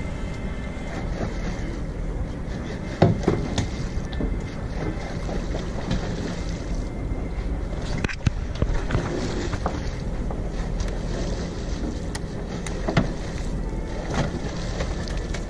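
Steady low rumble aboard a fishing boat with wind on the microphone, broken by a few sharp knocks, the loudest about three seconds in.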